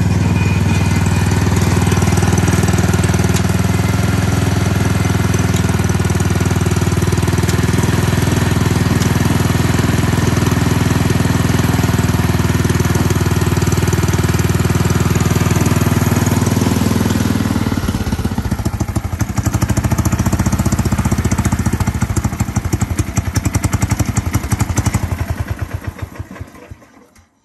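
Engine of an old Shiraishi Koki tracked snowblower running steadily, then shut off about two-thirds of the way in: its beats slow and fade until it stops just before the end.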